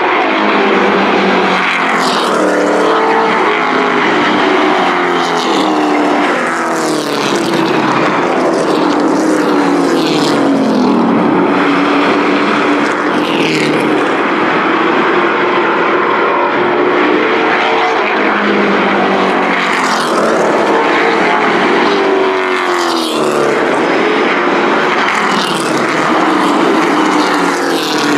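Racing pickup truck engines at full throttle on an oval track. Their pitch sweeps up and down as trucks pass by again and again.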